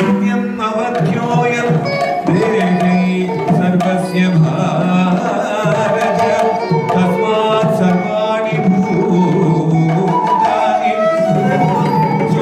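Indian classical dance music: a hand drum beating under a pitched melodic line.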